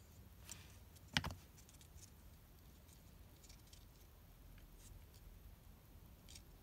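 Quiet handling of paper strips and a glue bottle on a craft mat, with a few faint clicks and one sharp tap about a second in.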